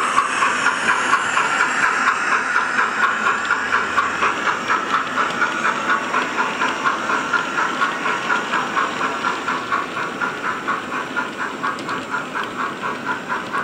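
Steam-locomotive exhaust chuffing played by a Zimo sound decoder through an Ice Cube speaker in the tender of a Bachmann 9F model locomotive, beating evenly at about three chuffs a second and growing slightly fainter as the loco runs away.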